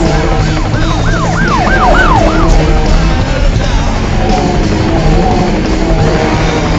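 Loud music soundtrack over a steady low bass line. About half a second in comes a two-second run of about six quick rise-and-fall pitch swoops, siren-like.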